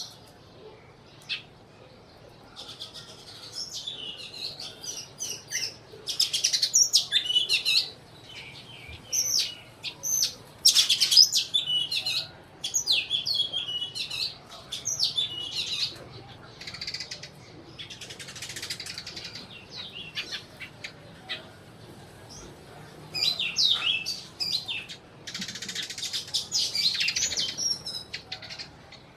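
A group of sparrows chirping in repeated bursts of quick high chirps, with short lulls between.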